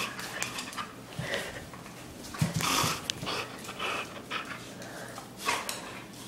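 A puppy panting and scuffling as it plays with a rubber ball toy on a hard floor, with a few knocks and scrapes, the loudest about two and a half seconds in and another about five and a half seconds in.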